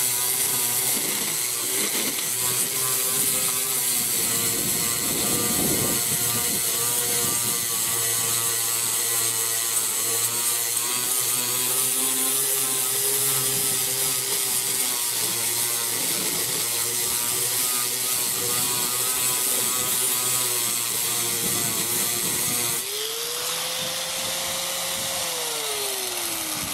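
Chicago Electric angle grinder with a 60-grit flap disc grinding body filler and paint off a car's steel roof, a steady loud grinding whine. Near the end the grinding stops, and the motor's whine rises and then falls away as it winds down.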